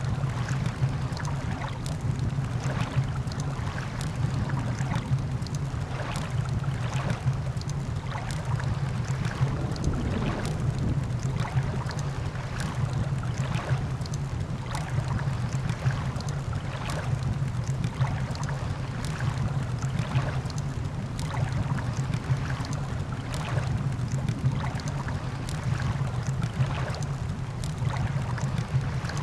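Campfire crackling, with sharp pops every second or so, over a steady low rush of ocean surf.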